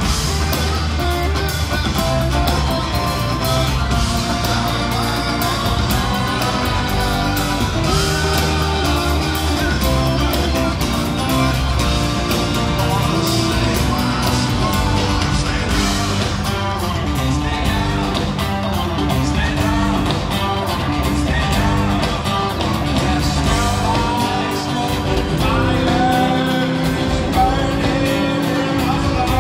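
Live rock band playing a song: a man singing lead over his own acoustic guitar, with the full band behind him.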